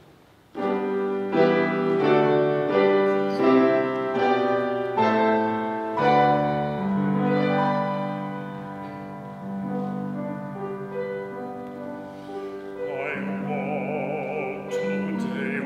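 Piano playing a slow introduction of sustained chords. About thirteen seconds in, a woman's solo singing voice with wide vibrato comes in over it.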